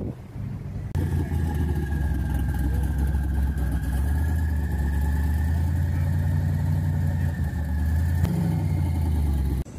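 Chevrolet Camaro's engine idling with a steady, deep note, starting abruptly about a second in. Its pitch rises slightly for a moment near the end.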